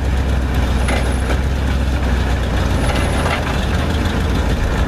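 Engine of a 1959 Chevy Viking tow truck running steadily as its wrecker winch drags a steel shipping container across the dirt, a low drone under a rough, even noise. A faint thin high tone comes and goes about every two seconds.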